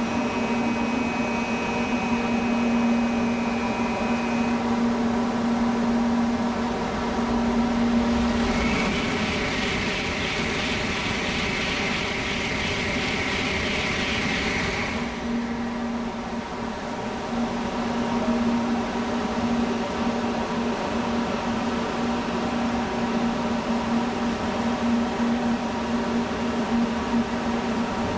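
N700-series Tokaido Shinkansen train passing through the station at high speed: a rush of running noise that builds about eight seconds in and cuts off about six seconds later. Under it runs a steady hum with a few fixed tones.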